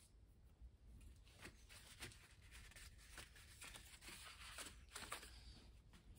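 Near silence, with faint rubbing and a few soft taps of a cloth wiping the gasket face of a Land Rover 2.25 petrol engine's cylinder head.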